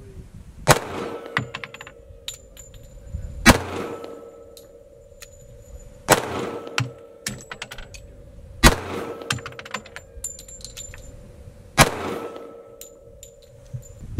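.45 ACP pistol firing five slow, deliberate shots, about two and a half to three seconds apart, each a sharp crack with a short echo. Light metallic clinks follow each shot.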